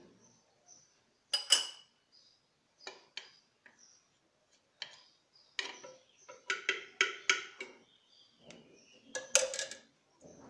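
Metal spoon clinking and scraping against a terracotta cooking pot while stirring meat, in short irregular knocks, with a quick run of clinks past the middle and a louder clatter near the end.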